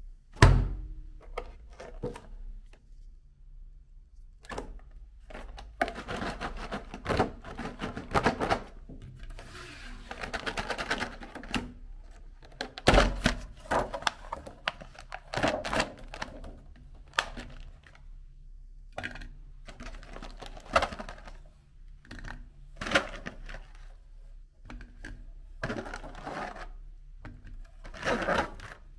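Electric meat grinder running with a steady low motor hum while candy is crushed in it, in irregular bursts of crunching and cracking.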